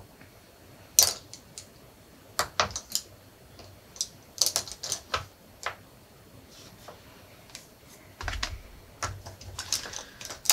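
Scattered light clicks and taps as makeup brushes and eyeshadow products are picked up and handled on a tabletop, with a couple of soft bumps near the end.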